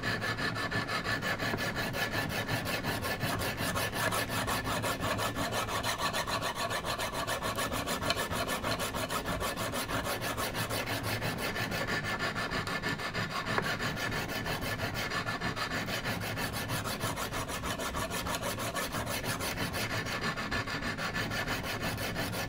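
Coarse 100-grit sharpening stones on a Wicked Edge guided sharpener scrubbing rapidly back and forth along a clamped chef's knife edge, a steady rasp of abrasive on steel. It is the grinding stage that sets a 25-degree bevel and raises a burr along the edge.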